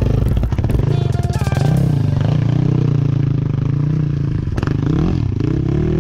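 Off-road motorcycle engine running under a rider's throttle, its pitch rising and falling with the revs as the bike picks its way along a rough trail.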